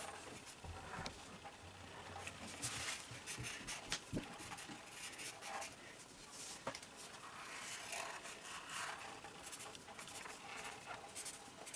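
Felt-tip markers rubbing and scratching on paper in faint, irregular strokes as children draw.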